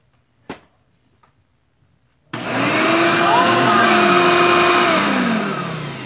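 A sharp click about half a second in, then the motor of a Hoover Elite upright vacuum cleaner starts abruptly, its whine rising in pitch as it spins up, runs loud and steady, and falls in pitch as it winds down after being switched off. It is running on a newly replaced power cord, showing the repair works.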